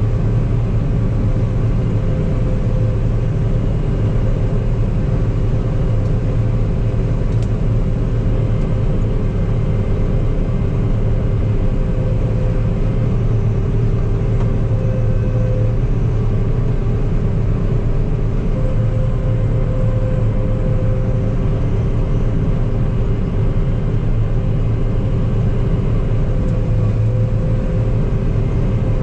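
Combine harvester running steadily under load while cutting wheat, a constant engine hum with no change in speed.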